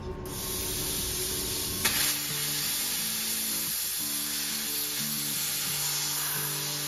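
A steady, loud hiss with a sharp click about two seconds in, over background music with a stepping bass line that comes in at the same point.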